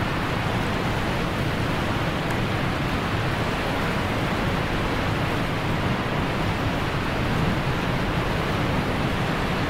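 Steady rushing of turbulent water, an even, unbroken noise with no change in level.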